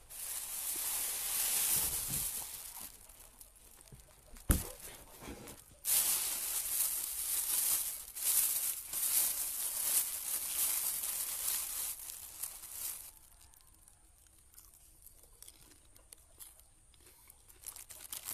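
Thin plastic bags rustling and crinkling as they are handled and opened, in two long spells, with a single sharp knock between them; only faint handling near the end.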